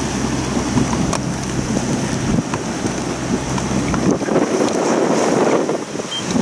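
Wind buffeting the microphone and water rushing past a sailing yacht's hull in a strong incoming tidal current. A steady low hum runs underneath and drops away about four seconds in, leaving a rougher wash of wind and water.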